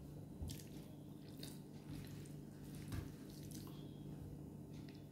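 Faint, wet eating sounds: a few short smacks and squishes as a mouthful of rice and duck-egg curry is chewed and fingers mix rice on the plate.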